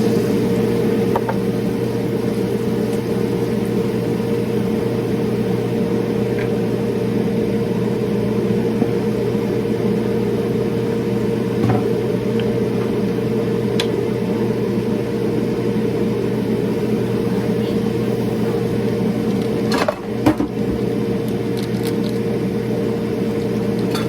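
Steady hum of a running fan motor, with a few light clinks and a brief dip in the hum about twenty seconds in.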